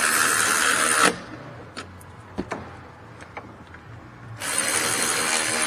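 Power wrench running in two bursts about three seconds apart, the first about a second and a half long, the second just over a second. It is spinning the brake caliper bolts down before their final tightening by hand.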